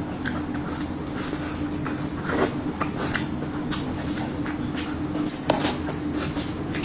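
A person eating: scattered wet mouth clicks and smacks, two sharper ones about two and a half and five and a half seconds in, over a steady low hum.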